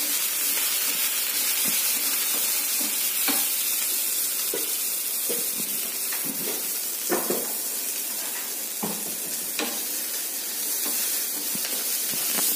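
Chopped onions sizzling steadily in hot oil in a nonstick frying pan over a medium flame, with a wooden spatula stirring them and scraping and tapping against the pan now and then.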